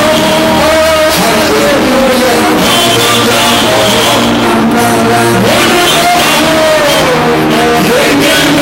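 Music with a singing voice over band accompaniment, guitar among it.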